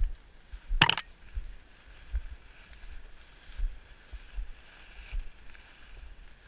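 Footsteps pushing through dry marsh grass and cattails, a dull thump at each stride under a faint rustle of stalks. About a second in, a stalk sweeps across the microphone with a short, loud swish.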